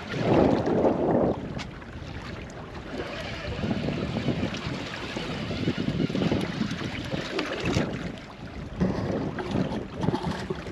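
Wind buffeting the microphone in uneven gusts, the strongest in the first second or so, over water sloshing against a small boat's hull in a fast-running tide.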